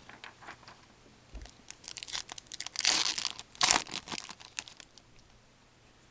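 A Fleer Ultra hockey card pack's wrapper being torn open and crinkled: a run of irregular crackles and rustles, loudest about three seconds in, dying away about a second before the end.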